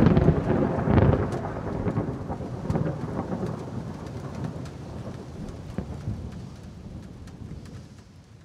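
Thunder rumbling over steady rain, loudest at the start with a heavy peak about a second in, then fading away toward the end.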